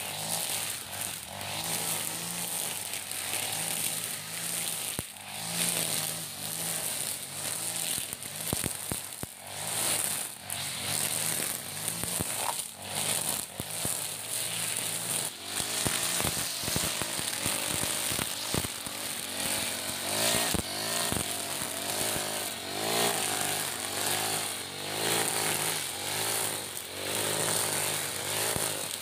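iPower EH40 backpack brush cutter, a 40cc four-stroke engine, running under load as its nylon trimmer line whirs through grass and weeds. The note rises and falls over and over with each swing, with many sharp ticks of the line striking stems and debris, most of them in the middle stretch.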